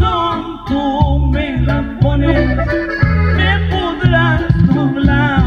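Norteño corrido music: an accordion plays the melody over a rhythmic bass line in an instrumental passage between sung verses.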